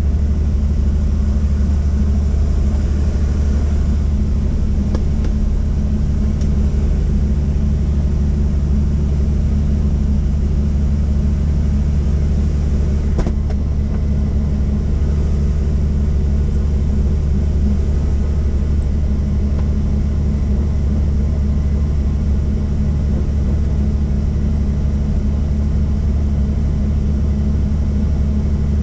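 Helicopter heard from inside the cabin: a loud, steady, deep drone of rotor and turbine engine.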